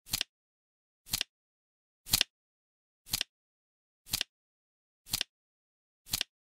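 Flip-clock flap sound clicking once every second as the seconds digit turns, each tick a quick double click.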